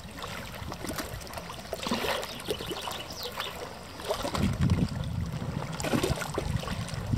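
Water trickling and splashing at the shoreline, with small crackling ticks. From about four seconds in, wind buffets the microphone with a low rumble.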